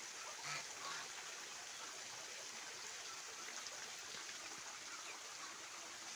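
Domestic geese and ducks, with a couple of faint short calls in the first second, over a steady background hiss.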